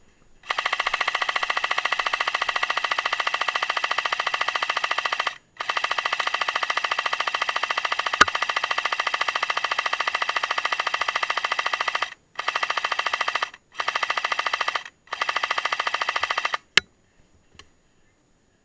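Airsoft PKM machine gun firing full-auto bursts, a rapid even buzzing rattle. Two long bursts of about five and six seconds, then three short ones of a second or so each, with a sharp click just after the last.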